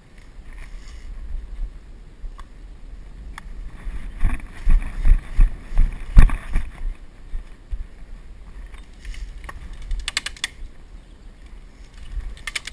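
Footsteps thudding on leaf-littered ground with gear rustling against a body-worn action camera, quickening into a run of heavy steps for a couple of seconds midway. About ten seconds in comes a short, quick rattle of sharp clicks.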